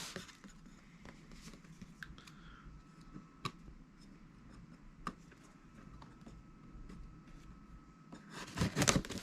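Faint handling of product packaging: scattered light clicks and rustles, with a louder burst of rustling near the end.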